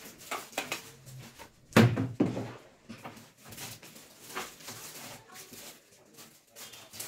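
A sudden clunk about two seconds in, with a second, softer knock right after: a stainless steel mixing bowl set down on a steel worktop. Faint scrapes and clicks otherwise.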